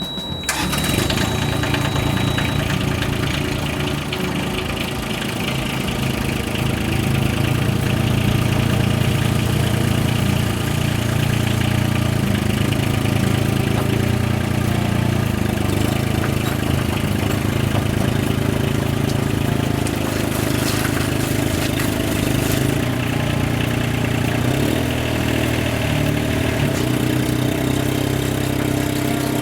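Yanmar Vio17-1 mini excavator's diesel engine running steadily. It comes in abruptly right at the start.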